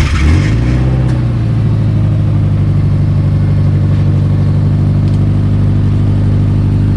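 2011 Subaru Impreza's flat-four engine just after starting: the revs flare briefly in the first half second, then settle into a steady idle through a freshly installed muffler. The muffler's flange joint still leaks exhaust.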